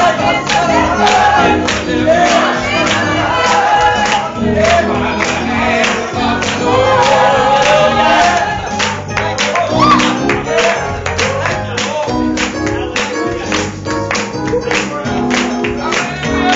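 Gospel music with singing voices over bass and a steady drum beat.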